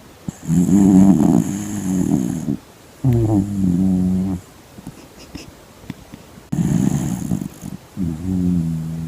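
Yorkshire terrier cross snoring in its sleep: two loud breaths, each a long snore followed by a shorter one that falls in pitch.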